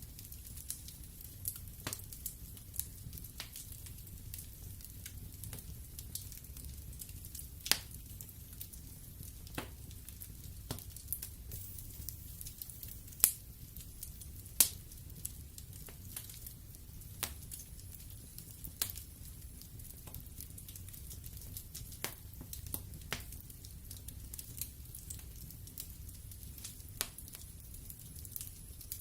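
Wood fire burning in a fireplace: a low steady rumble of flames with irregular crackles and sharp pops of burning logs, a few pops standing out louder.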